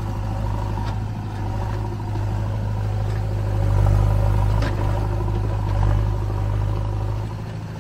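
Car engine running steadily: a low, even drone that swells slightly about four seconds in.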